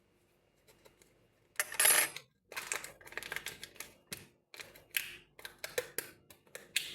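Kitchen utensils and containers being handled: a quick run of sharp clicks, taps and scrapes, like a spoon against tins and bowls, starting about a second and a half in, the first burst the loudest.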